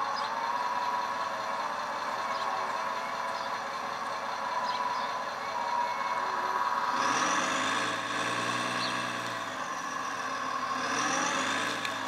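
Hydraulic pump of a 1/14-scale CAT 330F RC excavator whining steadily, its pitch dipping and shifting as the boom and bucket move under load. From about seven to eleven seconds in, a louder, deeper machine sound joins it.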